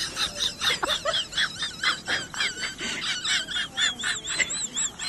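Small bird chirping rapidly, with quick high warbling trills that wobble up and down in pitch, stronger in the second half.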